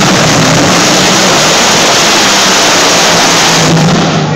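A pair of top fuel hydroplane drag boats running flat out down the course, their supercharged engines very loud and close to overloading the recording, holding steady and then starting to fade near the end as the boats pull away.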